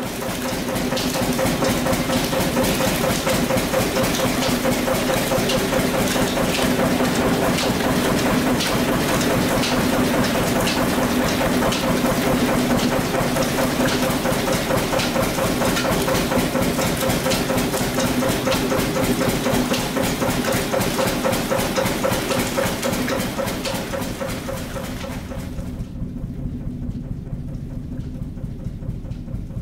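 Motor-driven sugarcane mill (trapiche) running with a steady engine drone as cane is fed through its rollers, with many sharp clicks over it. Near the end the sound turns duller and a little quieter.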